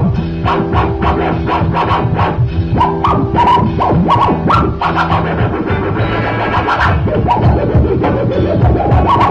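Electronic music with a steady beat and turntable-style scratching.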